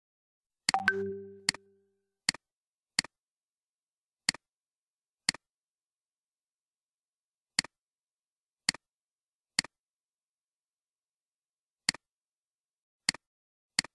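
Computer mouse button clicks, each a quick press-and-release, about a dozen at uneven intervals. About a second in, a short pitched tone sounds and fades away.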